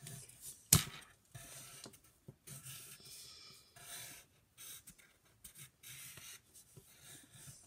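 A green crayon scratching on paper in several short strokes. There is one sharp tap about a second in.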